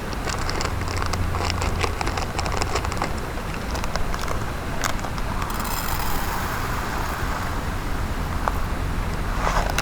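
Mountain stream running steadily, with a run of sharp crackles and clicks over it. About five seconds in, a high hiss starts and lasts about four seconds.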